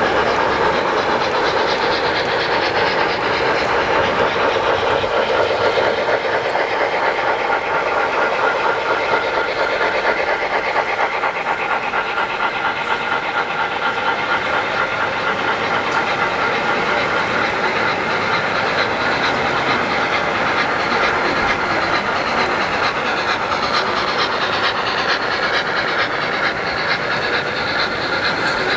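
O-scale model trains running on three-rail track: a steady rolling clatter of metal wheels on the rails as long trains pass close by.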